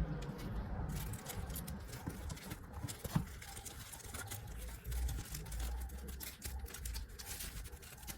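Packaging and sunglasses being handled during an unboxing: light rustling and many small clicks and taps, with one sharper click about three seconds in, over the low rumble of a hand-held phone microphone being moved.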